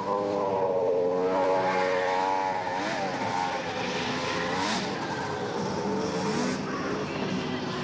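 Two-stroke snowmobile engines running at high revs, several at once, their pitches wavering and gliding up and down; loudest in the first couple of seconds.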